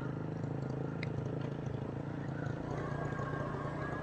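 A small motorcycle engine running steadily as it is ridden along.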